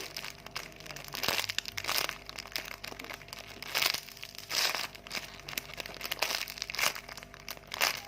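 Plastic packaging crinkling in irregular bursts as it is handled.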